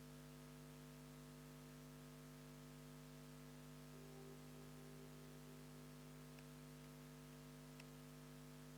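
Near silence: a faint steady electrical hum with a light hiss.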